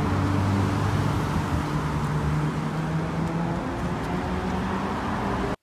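City road traffic: cars driving past with a steady engine and tyre hum that slowly fades. It cuts off suddenly at the very end.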